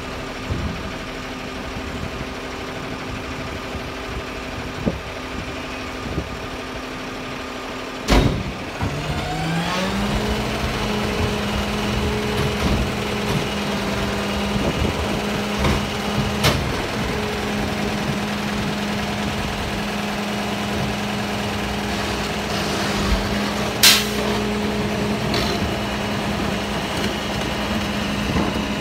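Garbage truck's diesel engine idling. About eight seconds in there is a sharp bang, and the engine speed then rises over a couple of seconds and holds steady at the higher pitch. Sharp metallic knocks come twice more, near the middle and later on.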